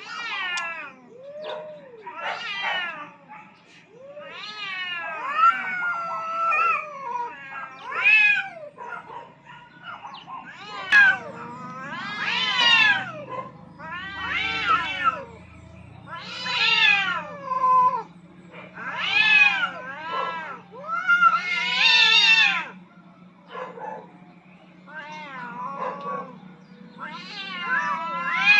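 Two tomcats caterwauling in a standoff: long, wavering yowls that rise and fall in pitch, traded back and forth every second or two and growing louder about a third of the way in.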